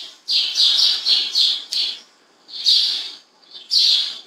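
A bird chirping in three bursts of quick, high, repeated notes with short pauses between them.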